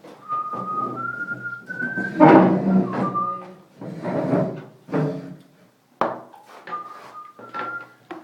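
A person whistling a little tune: a few clear held notes stepping up in pitch, then dropping and rising again near the end. Louder bursts of other noise break in, the loudest about two seconds in.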